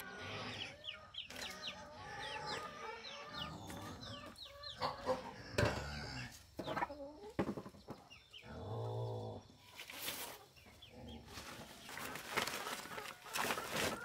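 Domestic chickens, hens and chicks, clucking and peeping continually, with one longer drawn-out call a little past the middle. A few sharp knocks and rustles break in, around the middle and toward the end.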